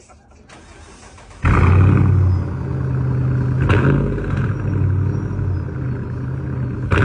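Dodge Daytona 392's 6.4-litre HEMI V8 starting up about a second and a half in with a loud flare, then settling within a second into a steady, deep idle rumble. Two short sharp knocks sound over it, midway and at the end.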